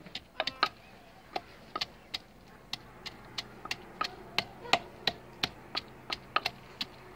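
Wooden pestle pounding garlic in a clay mortar: a steady run of sharp knocks, about three a second, some louder than others.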